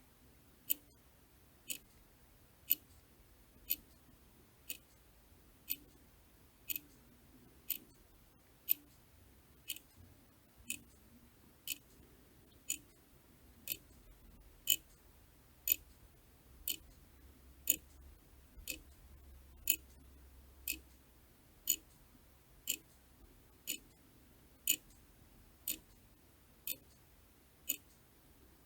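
Mechanical clock ticking steadily, one sharp tick each second.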